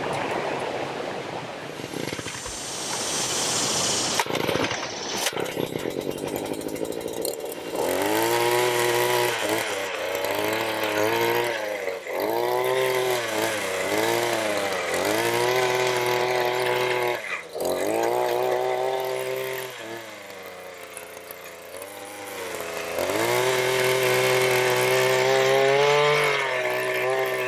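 Small gas engine of a one-man earth auger, running under load as the bit bores a post hole in the ground. Its pitch swings up and down again and again as the load changes, and it eases off briefly about twenty seconds in before running hard again.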